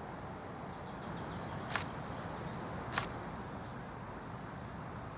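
Two sharp camera shutter clicks, about a second and a quarter apart, over a steady rush of background noise from the river.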